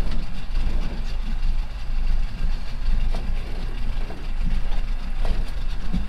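Small fishing boat's outboard motor running steadily as the boat moves along, a constant low rumble.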